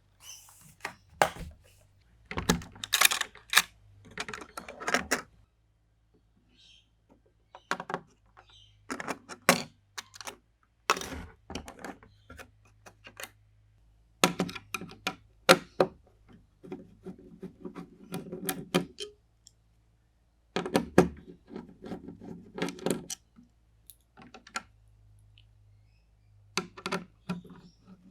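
Hands handling PC components: irregular clicks, taps and knocks in bursts, with short pauses between them.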